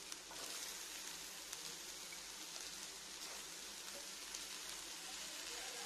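Faint, steady sizzling of chopped banana stem and spiced grated coconut frying in oil in an aluminium pan, with a few soft ticks.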